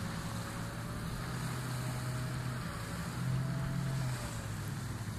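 Motorboat engine droning steadily at a distance, its note rising a little about three seconds in, over wind and surf noise.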